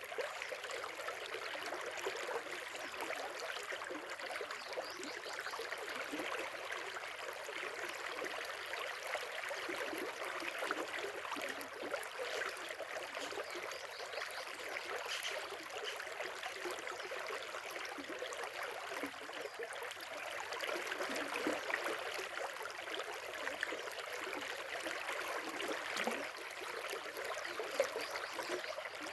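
River or stream water flowing steadily, a continuous rushing and trickling.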